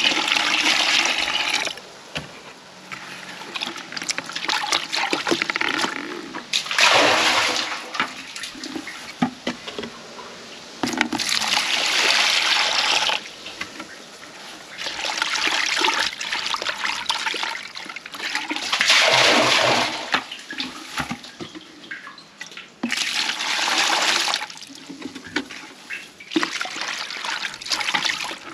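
Water pouring and splashing in about eight pours of a few seconds each, with short pauses between. The water rinses the rest of the bacterial starter out of a bucket and into the tank of a home biological sewage treatment plant.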